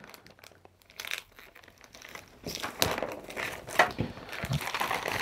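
Clear plastic parts bag crinkling and crackling as it is handled. The crinkles start about a second in and come thicker and more often in the second half.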